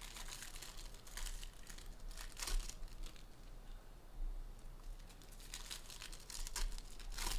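Bowman Jumbo baseball card pack wrappers being torn open and crinkled by hand: irregular bursts of tearing and rustling, loudest about two and a half seconds in and again near the end.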